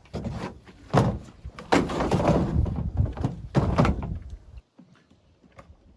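A series of knocks and thumps with low rumble between them. The loudest come about a second in, around two seconds and near four seconds, and the sound stops abruptly about a second and a half before the end.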